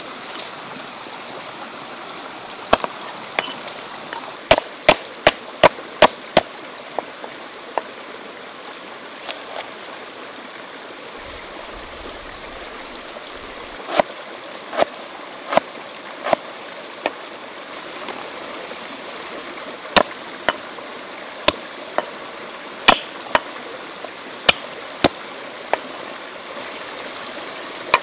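A knife chopping through ginger onto a thick round wooden chopping board: sharp knocks in short runs, with pauses between. Behind them is the steady rush of a stream.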